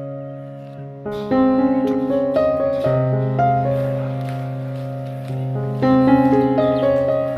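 Background music led by piano or keyboard, with a held low bass note under a melody of notes changing about every half second.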